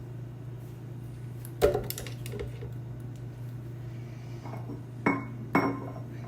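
Kitchenware knocking and clinking: three sharp knocks, one about a second and a half in and two close together near the end, over a steady low hum.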